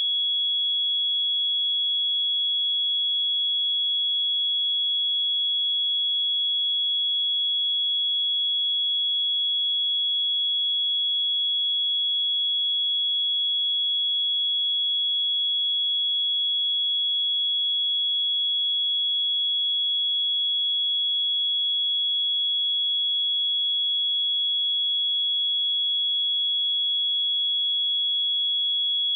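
A 3352 Hz sine-wave test tone, one pure high-pitched steady tone held at constant level, for checking speakers or headphones.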